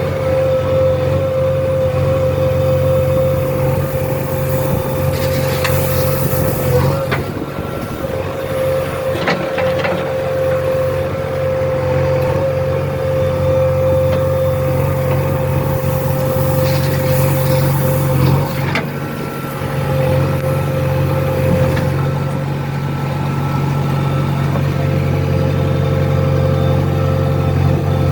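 JCB 3DX backhoe loader's 49 HP diesel engine running steadily, heard from inside the cab, with a steady high whine over it that drops away about three quarters of the way through. A few short knocks come from the machine as it works.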